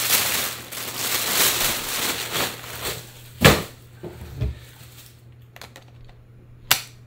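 Packaging crinkling and rustling for about three seconds as a camera is unwrapped, then a sharp knock, a dull thump and a few light clicks as the camera body is handled.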